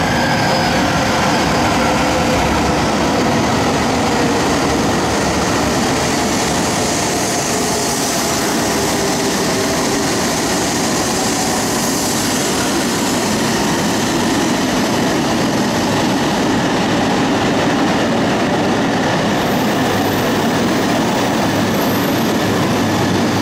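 Tohoku Shinkansen E2 series bullet train pulling slowly into the platform, making a steady running noise. A faint motor whine falls in pitch during the first couple of seconds as it slows.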